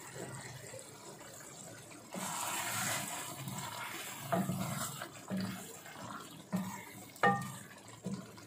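A wooden spoon stirring thick taro curry in a steel pan, knocking against the pan several times in the second half. A short hiss comes a couple of seconds in.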